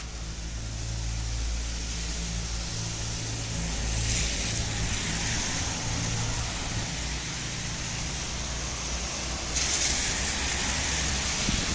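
Heavy rain hissing over a low steady engine hum. The hiss swells louder about four seconds in and again from about ten seconds.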